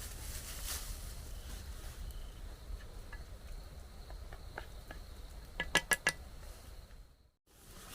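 Faint steady insect-like high tone over a low rumble, with a few light clicks and a quick run of four light metallic clinks about six seconds in. The sound drops out briefly near the end.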